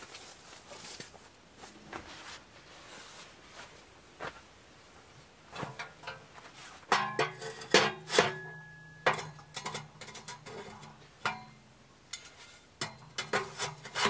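Steel stove pipe sections clanking and scraping as they are fitted onto a small tent wood stove. The first half holds only faint handling sounds; about halfway through comes a run of sharp metallic knocks with brief ringing.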